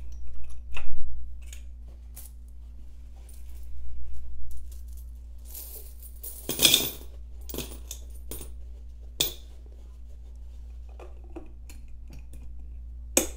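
Loose coins are poured from a fabric pouch into a glass jar, clinking and jingling against the glass and each other. The main pour comes just past the middle. It is framed by clicks and clatter from the jar's glass lid and wire bail clasp, which is opened near the start and snaps shut near the end.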